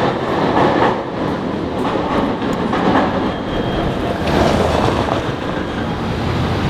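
A PCC electric streetcar running along street tracks, its steel wheels clacking over the rails.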